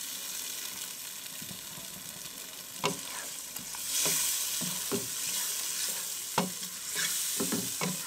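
Chicken in yogurt masala sizzling and frying in a non-stick pan, with a spatula stirring it in short strokes from about three seconds in. The sizzle swells louder a couple of times as the mix is turned over.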